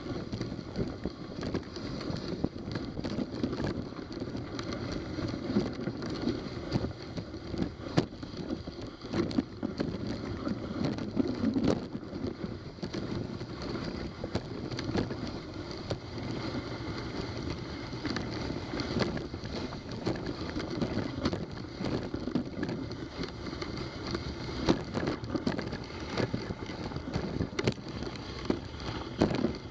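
Dog sled gliding over a snowy trail: a steady scraping of the runners on snow, broken by frequent sharp clicks and knocks from the sled.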